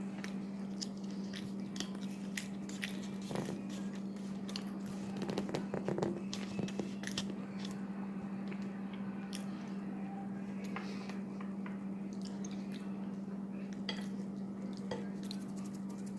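A person chewing and eating, with scattered short wet mouth clicks and smacks, busiest around five to six seconds in, over a steady low hum.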